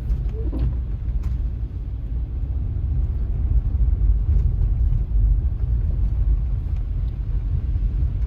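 Steady low rumble of an SUV driving on snowy streets, heard from inside the cabin: engine and tyre road noise.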